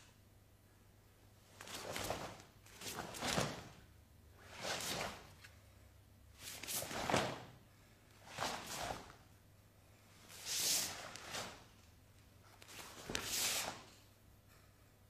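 A karateka moving through kata techniques: a short swishing burst with each movement, about ten in all, some in quick pairs, with quiet pauses between them.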